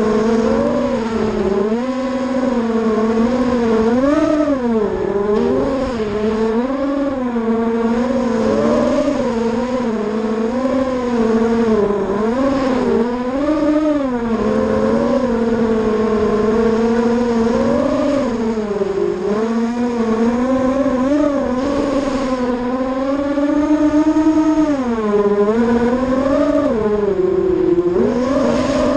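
ZMR 250 FPV racing quadcopter's brushless motors and propellers whining up close on the onboard camera, the pitch constantly rising and falling as the throttle changes in flight.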